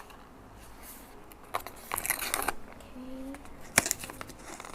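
Blind-bag packaging being crinkled and torn open by hand, in a few short crinkly bursts about two seconds in and a sharp tear near the end; the bag does not tear cleanly.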